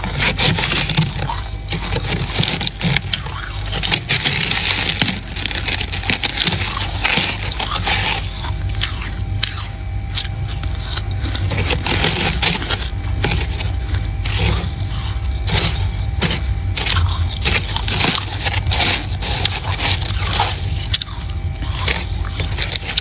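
Freezer frost being scraped: a continuous gritty crunching scrape made of many small crackles, as the ice crystals break loose.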